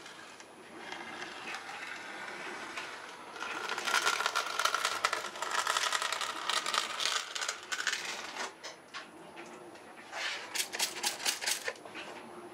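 Wide steel trowel scraping across wet cement and the metal rails, smoothing the surface in gritty, rasping strokes. The loudest scraping runs through the middle, and a quicker run of short sharp strokes comes near the end.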